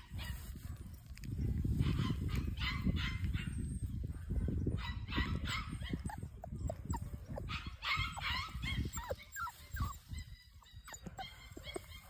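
Short animal calls in several clusters, some bending in pitch, over a low rumble of wind on the microphone.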